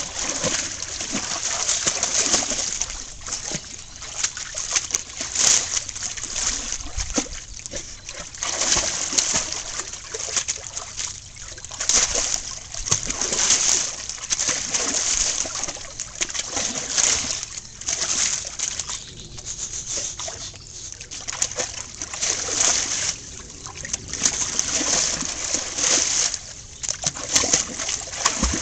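A large dog splashing and wading about in a shallow garden pond, water sloshing and splashing in irregular surges every second or two.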